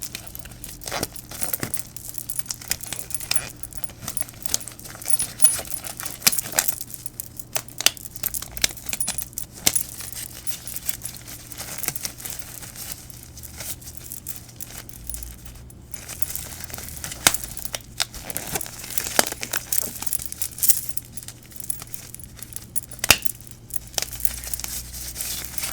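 Disposable gloves crinkling and crackling close to the microphone as gloved hands work, in irregular sharp crackles and clicks.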